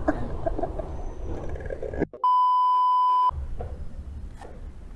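A censor bleep: a single steady, high, pure beep lasting about a second, about two seconds in, with all other sound cut out beneath it. Faint room noise on either side.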